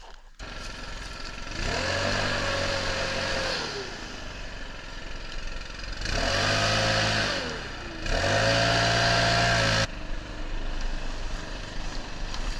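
Leaf blower engine revved up in three bursts of about two seconds each, each climbing in pitch, holding, then dropping back; the last burst cuts off abruptly.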